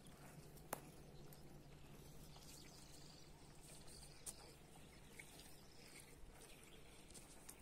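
Near silence, with a sharp click about a second in and a smaller one near the middle, and a few faint high chirps.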